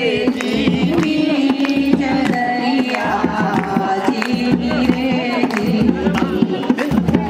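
Bhajan kirtan: voices singing a devotional song over frequent hand-drum strokes.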